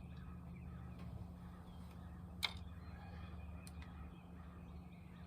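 A steady low hum, with one sharp click about two and a half seconds in and a fainter tick a little over a second later.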